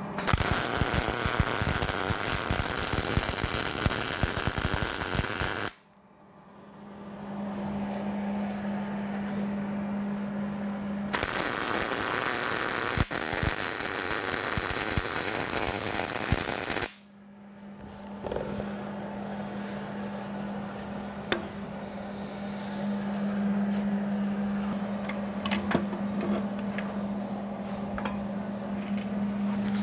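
MIG welder arc running on steel in two welds, about five and six seconds long, each cutting off abruptly. Between and after them a steady low hum, and in the last part clicks and clanks of steel clamps being handled.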